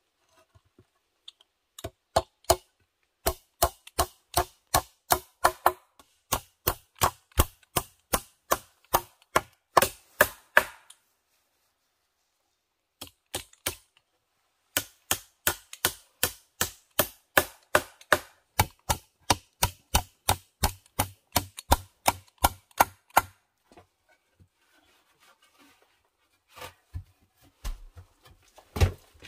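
Hammer blows on a wooden plank, a steady run of sharp knocks about two to three a second, a pause, then a second long run. A few lighter knocks follow near the end.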